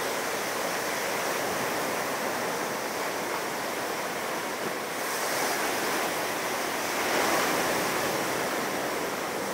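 Ocean surf breaking and washing up the beach near high tide, a steady rush that swells louder from about five seconds in and peaks around seven seconds.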